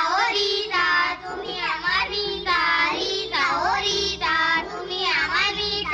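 Children's voices singing a song over an instrumental backing, in phrases of about a second each.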